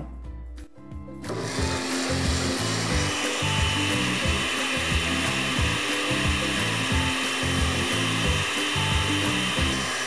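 Countertop blender with a glass jar starting up about a second in and running steadily, a motor whine over the churning, as it liquidizes a runny batter of water, eggs and cooked mashed yam. Background music plays underneath.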